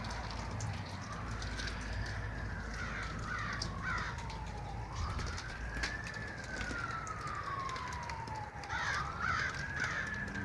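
A siren-like wailing tone rising and falling slowly, about once every four seconds, over a steady low rumble. Crows caw twice in short bursts, a few seconds in and near the end.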